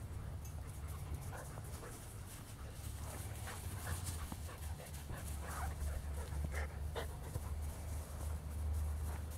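German Shepherd puppies panting as they play, with short, sharp sounds scattered through the middle of it, over a steady low rumble.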